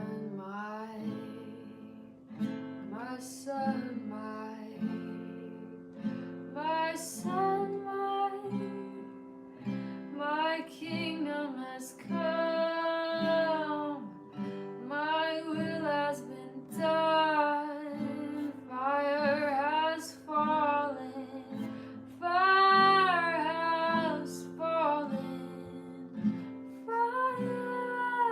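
A woman singing a slow song with long held notes over a strummed acoustic guitar.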